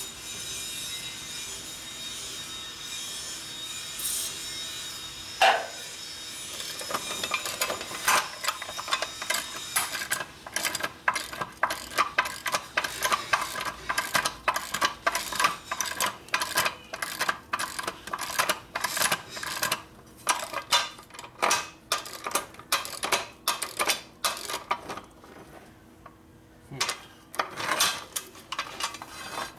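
Steel scissor jack's threaded screw being cranked with a wrench: metal threads rasping and clicking in a fast, steady run of strokes that thins out near the end. The threads bind, which the mechanic suspects were damaged.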